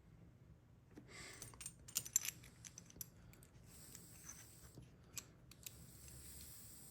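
Small metal lock wafers being handled and sorted on a bench: light clicking and rustling, with a cluster of sharper clicks about two seconds in.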